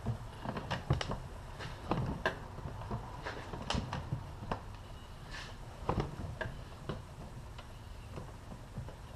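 Irregular metal clicks and clacks from a recliner's steel footrest linkage being worked by hand, its pivots and newly fitted stud tried for free movement.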